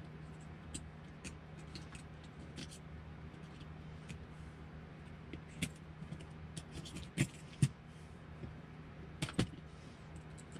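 Hex driver backing screws out of a plastic RC truck chassis, with scattered small clicks and clinks of tool, screws and parts being handled. A few louder clacks come about 7 and 9 seconds in, over a steady low hum.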